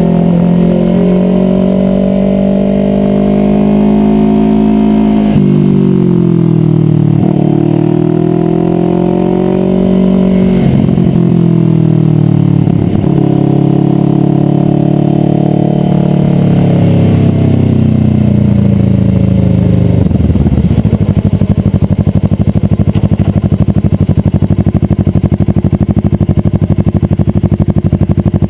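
Kawasaki Ninja 650R's parallel-twin engine running on the road, its pitch climbing and then dropping sharply several times. About twenty seconds in it falls to a steady idle as the bike sits stopped.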